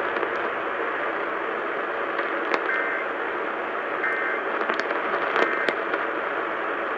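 Radio static: a steady hiss with scattered crackles and clicks, and a few brief faint tones breaking through.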